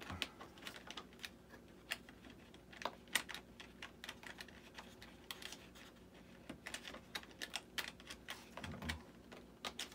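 Irregular light clicks and taps of small parts being handled and fitted by hand while swapping the landing gear struts and retracts of an RC model jet.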